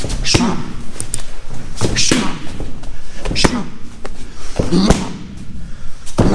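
Strikes landing on Muay Thai pads: about five sharp slaps, roughly one every second and a half, each with the fighter's sharp breath out.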